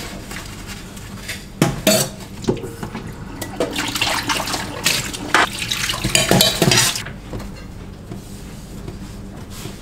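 Dishes and a pan clinking and knocking against a stainless-steel sink as they are washed by hand, with tap water running for a few seconds midway.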